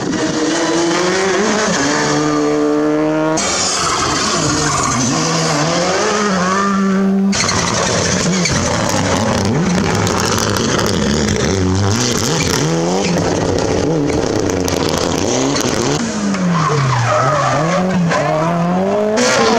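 Rally car engines at full throttle, one car after another, with abrupt changes as each new car comes in. The engine pitch climbs, drops at gear changes and swings up and down as the drivers come on and off the throttle through corners, with tyre noise from sliding.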